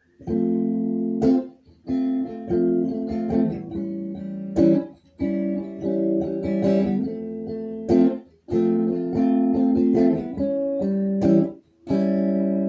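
Acoustic guitar strumming chords as a song intro. The phrase repeats four times, each ending in a sharp accented strum that is cut off by a brief silence.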